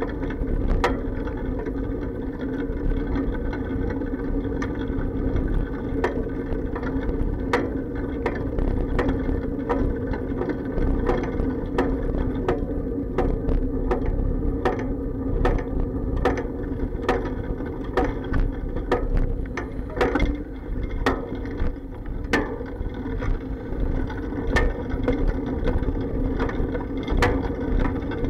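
Bicycle ride heard through an action camera's sealed waterproof case mounted on the bike: a steady muffled rumble with frequent irregular sharp clacks and knocks as bumps and rattles carry through the bike frame into the case.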